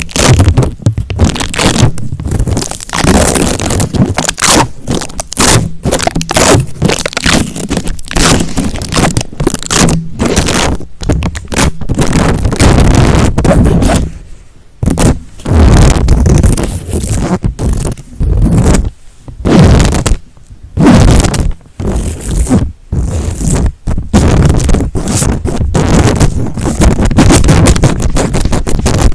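Close-miked ASMR scratching and scraping on an object, in fast, irregular strokes with a few short pauses.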